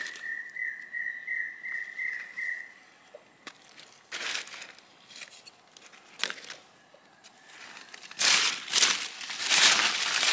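Dry leaf litter crackling and rustling under footsteps and handling, with scattered clicks and then dense, loud bursts from about eight seconds in. A steady high whistling tone, faintly pulsing, sounds over the first two and a half seconds and then stops.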